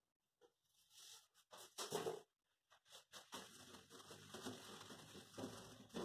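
Faint cloth wiping a stainless steel stovetop: a few brief rustles, then from about three seconds in a steady light rubbing with scattered soft knocks.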